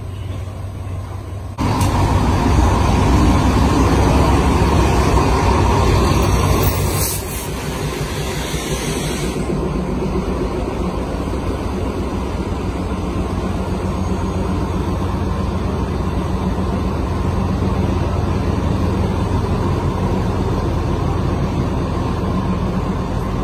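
Diesel passenger train pulling into a station: a heavy rumble of engine and wheels that comes in suddenly about a second and a half in, with a brief hiss a few seconds later. It then settles to a steadier low engine rumble as the train stands at the platform.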